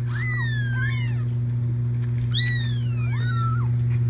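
Young kittens meowing: about four high-pitched meows, each falling in pitch, over a steady low hum.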